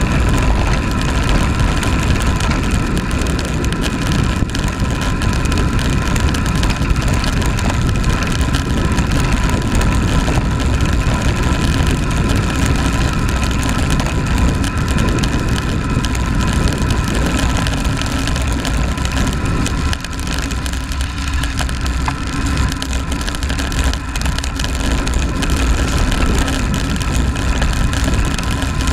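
Wind rushing and buffeting over the microphone of a camera on a road bike descending at speed, mixed with tyre noise on tarmac, steady throughout with a faint steady whine above it.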